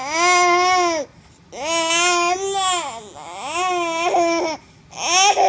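A nine-month-old baby making long, drawn-out "aah" vocal calls, four in a row, each lasting about a second with the pitch rising and then falling. The last call begins near the end.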